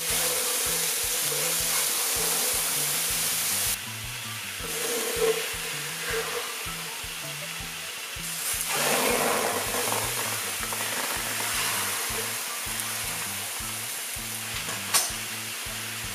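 Raw beef large intestines (daechang) sizzling on a hot electric grill pan, a steady frying hiss that swells for about a second some nine seconds in. One sharp click near the end.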